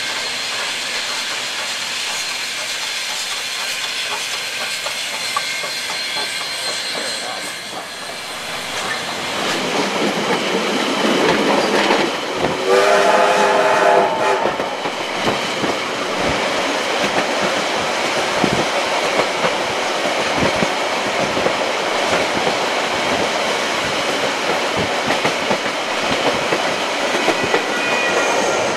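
Steam locomotive Ja 1275 with a steady hiss of steam, then the sound from aboard the moving train: wheels clattering over rail joints, with a whistle blast lasting about a second and a half, roughly 13 seconds in.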